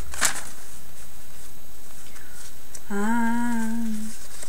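A woman hums a single steady note for about a second, near the end. Just before, paper rustles briefly as small envelopes are handled.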